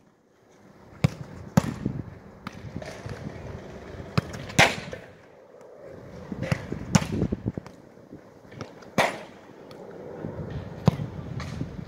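A football being struck and touched during skills training: sharp thuds at uneven intervals, about a dozen in all, the loudest two a little before halfway and about three quarters through.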